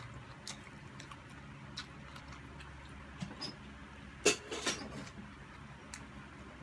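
Two people eating by hand: scattered soft clicks and mouth smacks of chewing, with a louder cluster of smacks about four seconds in, over a low steady hum.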